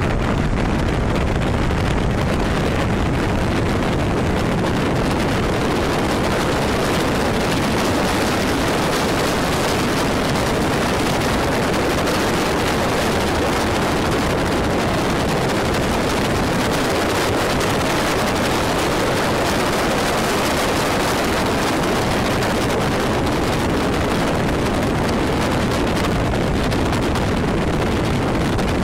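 Steady rush of wind over the microphone of a motorcycle-mounted camera riding at speed, with the motorcycle's running and road noise underneath.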